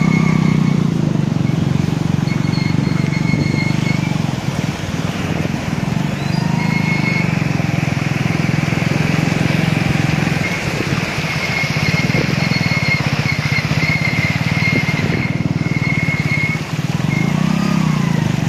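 Motorbike engine running steadily at low speed through floodwater, under a constant rush of water spray and wind. A thin high whine comes and goes.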